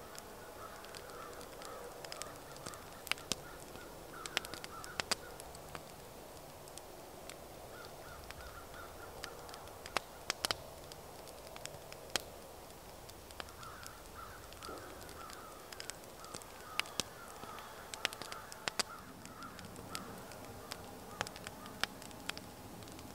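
Wood campfire crackling, with sharp pops scattered throughout. Behind it, a bird calls over and over in short runs of notes.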